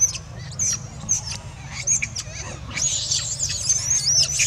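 Young long-tailed macaques screaming: a string of short, high-pitched squeals that runs together into rapid, continuous squealing in the last second and a half.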